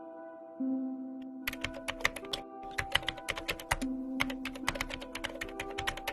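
Rapid, irregular computer-keyboard typing clicks over soft background music with long held tones. The typing starts about a second and a half in and runs through most of the rest.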